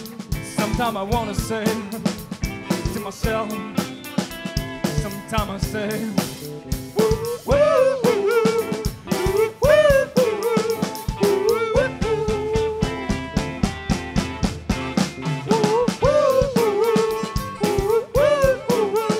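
Live band playing a passage without words: a drum kit keeps a steady, busy beat with snare hits under bass and electric guitars, and a lead melody line bends and slides over it from about a third of the way in.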